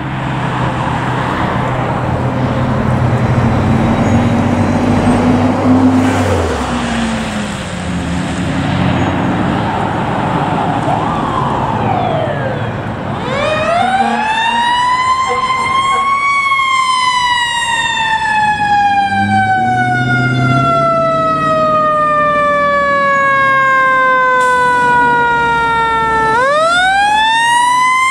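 Heavy fire truck engine running with road noise for the first half. Then the siren of a 2004 Seagrave pumper fire engine winds up about halfway in, falls slowly over about ten seconds, and winds up again near the end.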